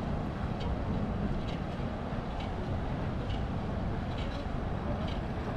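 Outdoor city street noise: a steady low rumble of traffic, with faint regular ticks about once a second from the walker's footsteps.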